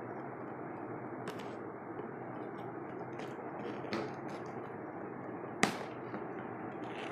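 Packaging being handled during an unboxing: a few sharp clicks and taps, the loudest about two-thirds of the way through, over a steady background hiss.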